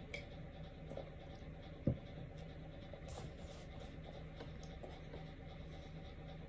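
A plastic drink bottle set down on a table with one dull thump about two seconds in, over a faint steady room hum. A brief soft rustle follows about a second later, with small scattered ticks.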